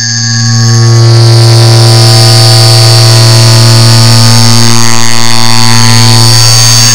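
A clock tick repeated so fast that the ticks merge into one very loud, harsh low buzz. It swells over the first second, holds steady, then breaks off abruptly at the end.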